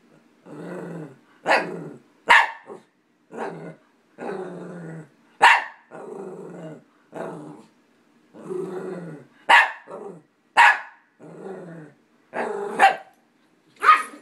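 Dogs growling and barking at each other: a string of growls about a second long each, broken by several short, sharp, loud barks.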